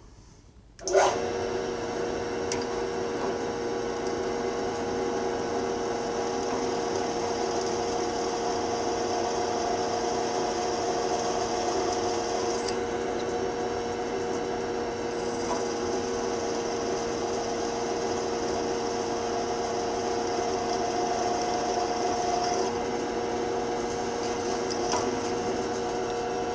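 Drill press starting about a second in and running steadily as its twist drill cuts a 1/4-inch hole through an oiled steel plate.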